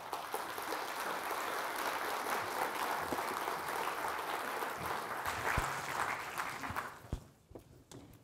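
Audience applauding: dense clapping that dies away to a few scattered claps about seven seconds in.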